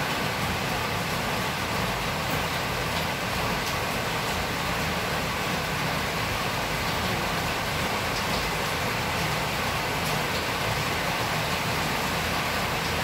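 Heavy rain falling steadily, heard as a constant, even rushing noise.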